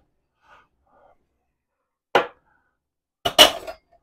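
Two sharp clinks of a metal kitchen utensil against cookware, about two seconds in and again near the end, the second a brief clatter with a ringing tone.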